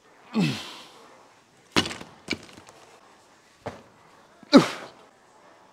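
Barbell snatches from lifting blocks: a heavy thud as the lifter catches the bar overhead about half a second in, sharp knocks of the loaded barbell being set back on the blocks around two seconds in, and a second, louder catch thud a little after four and a half seconds.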